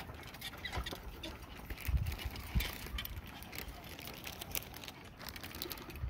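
Footsteps on the grated deck of a suspension walkway: irregular clicks and knocks, with a couple of heavier thuds about two seconds in.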